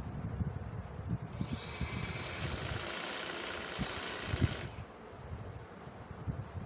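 Electric sewing machine running for about three and a half seconds, starting about a second in, its motor whine rising briefly as it gets up to speed while stitching fabric. Soft low knocks from the fabric being handled can be heard before and after.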